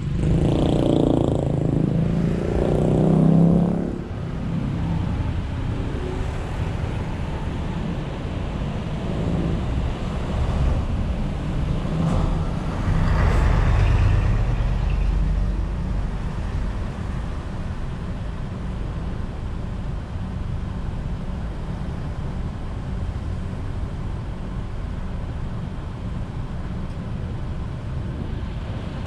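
Road traffic noise heard from a car crawling in slow traffic and then standing in a queue. Louder swells of vehicle noise come in the first few seconds and again around twelve to fifteen seconds in, and after that a steady low hum continues.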